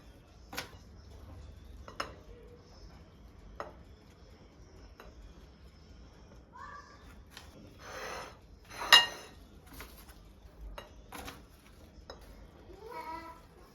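Dishes and cutlery being handled: scattered taps and clinks of crockery, glass and metal utensils, with one louder ringing clink about nine seconds in.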